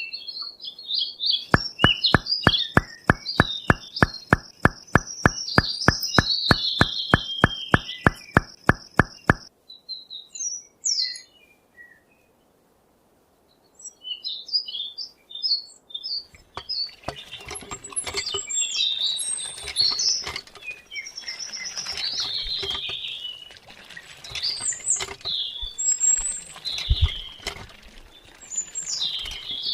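Small birds chirping and twittering. For the first several seconds a regular ticking, about four clicks a second, runs under the chirps; after a short lull the chirping comes back busier, mixed with light pattering.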